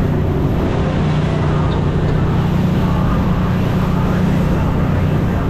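Pursuit 2870 walkaround boat's engines running steadily at cruising speed, a loud, even drone. Over it is a steady rushing hiss of wind and water.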